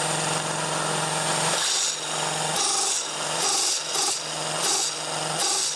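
Sanden air-conditioning compressor driven by a belt from a VFD-fed electric motor, running with a steady hum. From about a second and a half in, several short bursts of hiss come and go, roughly one a second.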